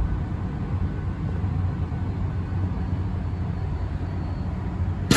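Steady low hum of a Queensland Rail SMU 200 electric train standing at the platform, its onboard equipment running.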